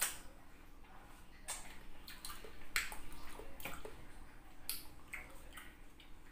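Wet mouth sounds of a person eating rambutan flesh: chewing, lip-smacking and squelchy clicks, coming irregularly about once a second.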